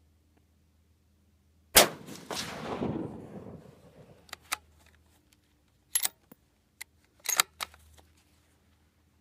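A single shot from a Savage 10FP bolt-action rifle in .223 Remington, a sharp crack about two seconds in with an echo trailing off for about two seconds. Then a series of metallic clicks and clacks, the bolt being worked to eject the case and chamber the next round.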